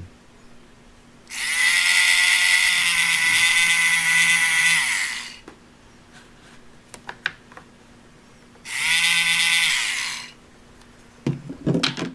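Toy dentist's drill whirring twice as it drills a hole in a Play-Doh tooth: a run of about four seconds, then a shorter burst of about a second and a half, each winding up in pitch as it starts and down as it stops. Light clicks and handling near the end.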